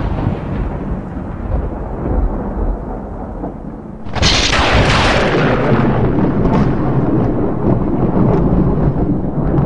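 Thunder: a low rolling rumble fading away, then a sharp thunderclap about four seconds in that rolls on in a long deep rumble.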